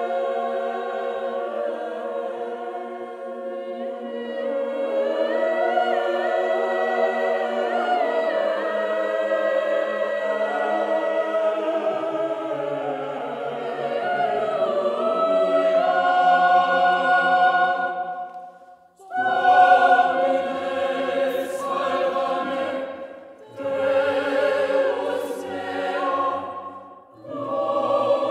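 Choir in divided soprano, alto, tenor and bass parts singing polyphony built on an Old Hispanic chant melody. Overlapping upper lines are joined by lower voices about twelve seconds in, and from about two-thirds of the way through the full choir sings short phrases with brief breaks between them.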